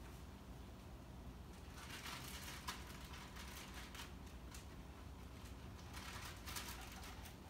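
Faint rustling with a few light clicks as towels and small items are handled on a table, over a low steady hum.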